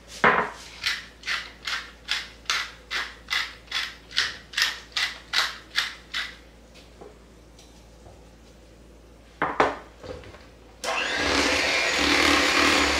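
Hand-twisted spice grinder crackling in a quick, even rhythm, about two and a half turns a second for some six seconds. After a pause and a couple of knocks, an electric hand mixer switches on and runs steadily, beating mashed potatoes in a bowl.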